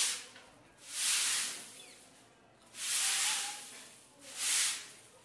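Sweeping strokes across a concrete floor scattered with grain: four swishes, a second or two apart.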